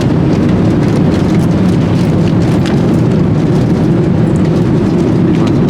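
Steady, loud rumble of a jet airliner's engines and airflow heard from inside the passenger cabin.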